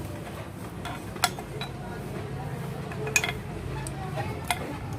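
Hand tools and metal parts clinking as they are handled and set down: a few sharp metallic clinks over a steady low hum.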